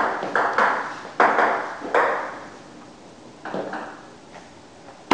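A table tennis rally: sharp clicks of the celluloid ball off paddles and the table, several in quick succession, then a short lull before a few more hits. Each click has a short echo.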